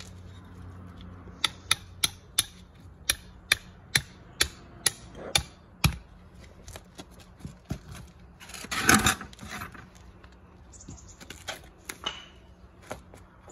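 About a dozen sharp hammer blows, roughly two a second, driving steel nails through plastic snap-edge paver restraint into the sand base. A short noisy burst comes about nine seconds in, followed by a few lighter taps as the next nail is set.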